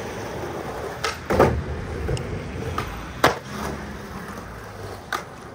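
Skateboard wheels rolling and rumbling over stone paving, with several sharp clacks of the board against the ground: about a second in, again just after, around three seconds and near the end.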